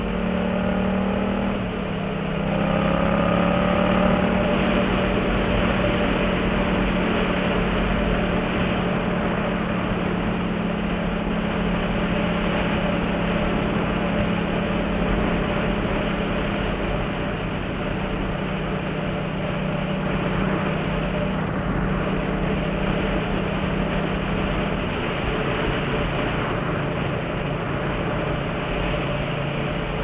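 Yamaha MT-07's parallel-twin engine through an aftermarket Jeskap GP Carbon exhaust, running steadily at highway speed under a constant rush of wind. The engine note dips and rises again about two seconds in, then settles lower about 25 seconds in as the bike shifts up a gear.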